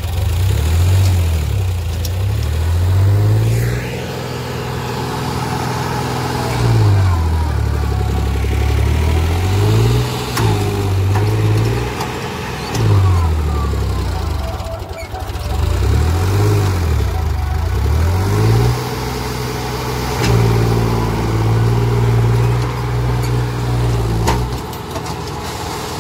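Massey Ferguson tractor's diesel engine revving up hard and dropping back in about five repeated surges, straining under load to haul a soil-laden trolley through soft dirt where it is stuck.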